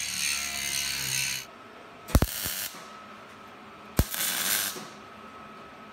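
Angle grinder running against the steel frame of a battery box for about the first second and a half. Then two short bursts of electric arc welding, each under a second and starting sharply, as the steel bottom plate is tack-welded on.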